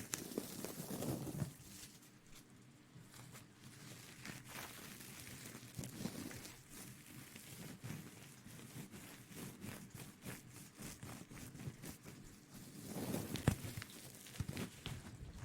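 Close-miked rustling and crinkling with many small irregular clicks and crackles, louder in the first second or so and again near the end.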